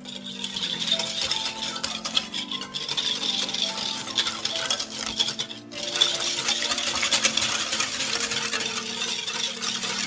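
A stainless steel wire whisk beats matcha powder, sugar and a little milk in a glass bowl. Its wires rattle and scrape rapidly against the glass, and the whisking stops briefly a little past halfway before starting again.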